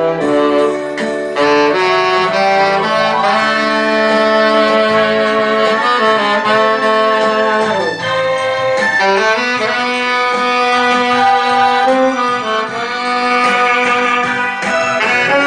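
Saxophone playing a melody live, with other instruments sounding beneath it.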